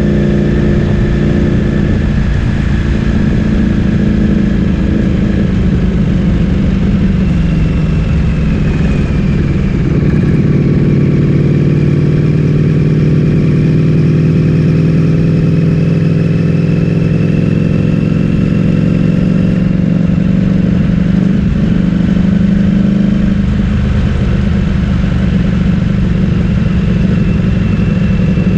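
Ducati Streetfighter V4S's V4 engine through an Akrapovic full-system exhaust, running steadily while riding. The engine note dips slightly about a third of the way in and rises again near the end, over a low rumble.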